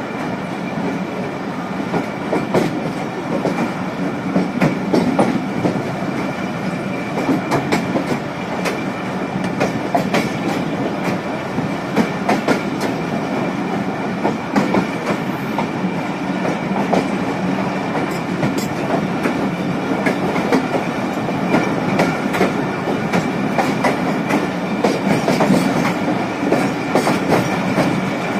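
Passenger coaches of the Jaffar Express, a Pakistan Railways express, running along the track: a steady rumble with the wheels clicking and clattering over the rails, heard from a carriage window.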